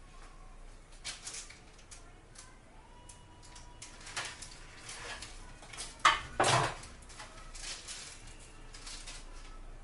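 Kitchen utensils being handled on a worktop: scattered light clicks and taps, then a sharp click and a louder clatter about six seconds in.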